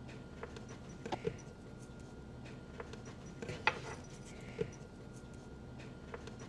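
Faint handling sounds of a cooked potato over a wooden board: a few soft taps and rustles, about four in all, over a low steady hum.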